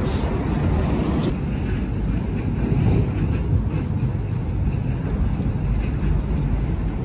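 Wind rumbling on the microphone over the hum of road traffic, a loud, uneven low rumble. A higher hiss drops away about a second in.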